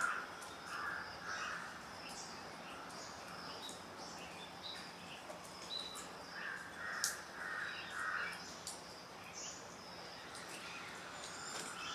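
Bird calls: a run of short, evenly spaced calls at the start, and a second run of about four calls from about six and a half seconds in. Faint high chirps of small birds sound in between.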